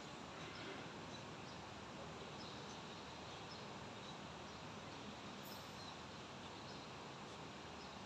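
Near-quiet room tone of a large prayer hall: a faint, steady hiss with no voices.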